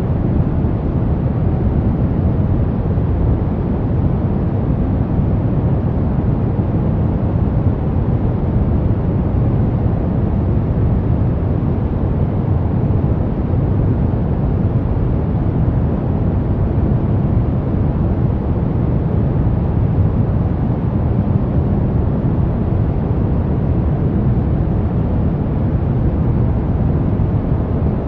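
Brown noise: a steady, deep rushing noise, heaviest in the bass and dull in the treble, unchanging throughout.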